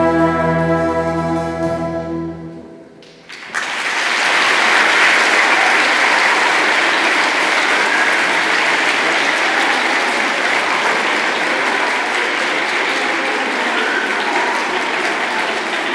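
School orchestra of strings, guitars and brass holds the final chord of a piece, which dies away about three seconds in. After a brief hush, a large audience breaks into steady applause.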